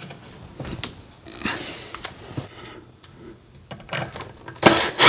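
Light clicks and rustles of handling, then near the end a cordless drill-driver starts suddenly and loudly, driving a screw up into the wooden shelf.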